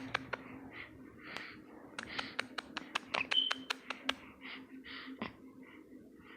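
A small child's short breathy gasps and puffs of laughter, typical of laughing through hiccups, mixed with many sharp clicks that are thickest in the middle, over a faint steady hum.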